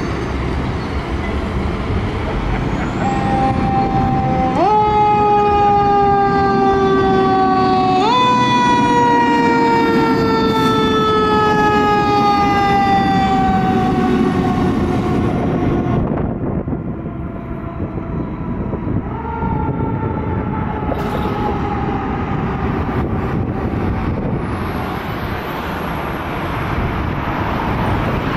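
Fire engine's mechanical coaster siren, a Federal Q, spun up sharply twice in a row and then winding down in a long, slowly falling wail; it sounds again more faintly, falling in pitch, as the truck moves off. A steady vehicle rumble and street noise run underneath.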